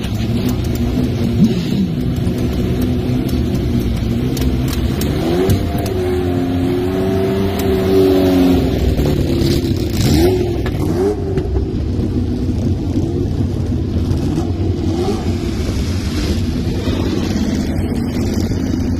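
Racing car engine running steadily, revved sharply a few times, about five, ten and fifteen seconds in.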